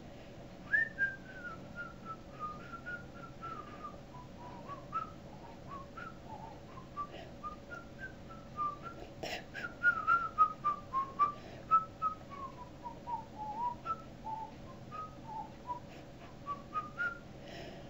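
A person whistling a wandering tune of many short, sliding notes, with a few light clicks and a knock about halfway through.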